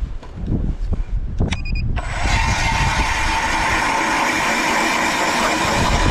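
Power ice auger starting suddenly about two seconds in and running steadily as it drills a hole through the pond ice. Wind rumbles on the microphone before it starts.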